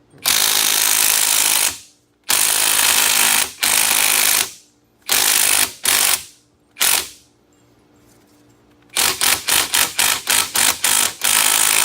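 Cordless impact wrench hammering in repeated bursts, driving the screw of a U-joint press to push out the universal joint's end caps; the bursts become short rapid blips about two thirds of the way in.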